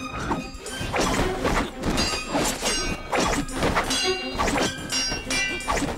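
Fight sound effects from a martial-arts duel: a rapid run of strikes and hits, about two a second, over dramatic background music.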